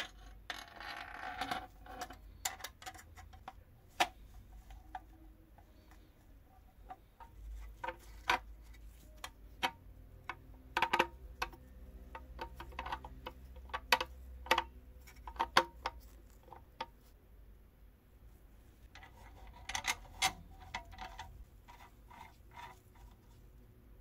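Parts of an antique hand-crank box coffee grinder being handled and fitted together: scattered light clicks and taps of metal parts, with brief scraping about a second in and again near the end.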